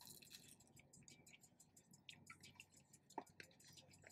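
Near silence with faint chewing and small clicking mouth sounds from people eating crispy rolled snacks.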